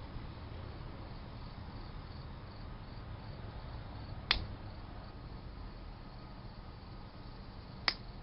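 Crickets chirping faintly and steadily over a low background rumble, with two sharp clicks: one about four seconds in and one near the end.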